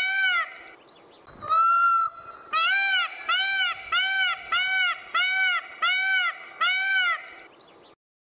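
Indian peafowl (peacock) calling: a rapid series of loud, ringing honks, about one every half second. A longer, flatter call comes about a second and a half in, and the sound cuts off sharply near the end.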